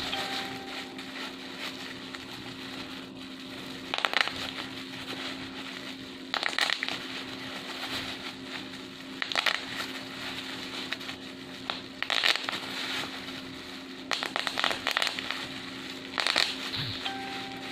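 Bubble wrap being popped by hand: clusters of several quick pops about every two to three seconds, with the plastic crackling and crinkling in between.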